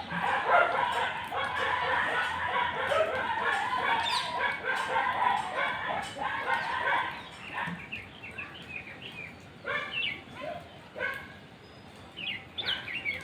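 Animal calls: a dense overlapping chorus for the first half or so, thinning after about seven seconds to scattered separate calls with a few quick rising chirps near the end.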